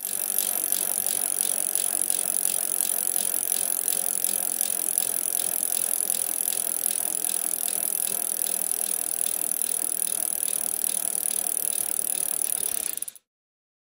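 A bicycle: a fast, even ticking with a light rattle, cutting off suddenly near the end.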